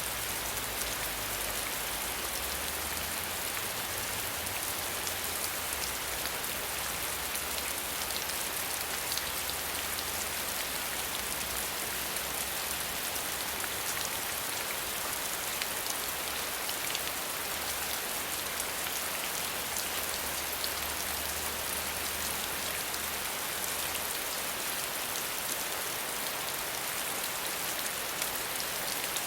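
Steady rain falling: a dense, even hiss of drops with fine individual drop ticks. A faint low rumble comes and goes underneath.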